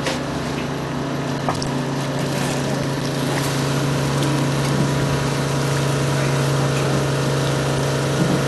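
Small boat's engine idling with a steady hum while a trap is hauled aboard, with a few faint clicks.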